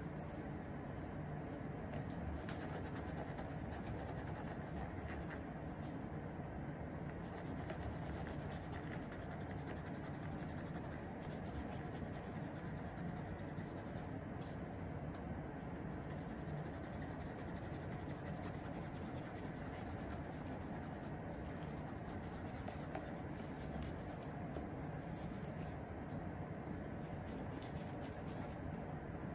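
Cloth wrapped over the fingers rubbing a suede Paraboot Michael shoe upper in repeated strokes, a soft scratchy scrubbing that comes and goes as the dirt is wiped off. A steady low hum of room noise runs underneath.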